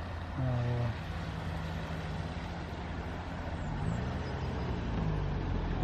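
A motor vehicle engine running steadily over a low rumble, its pitch dipping briefly and recovering about four seconds in.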